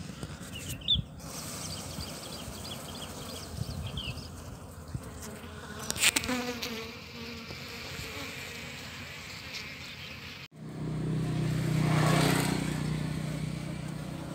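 A crowd of honey bees buzzing on an open comb: a steady low hum that comes in sharply about ten seconds in and swells loud. Before it, a quieter background with a few brief high chirps.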